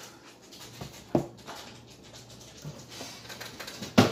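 Long cardboard kit box being handled and set down on a table: faint handling noise, a knock about a second in and a louder knock near the end.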